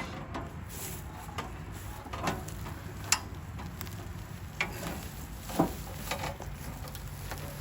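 A few scattered light knocks and clicks from parts being handled while a chipper shredder is reassembled, over a steady low hum.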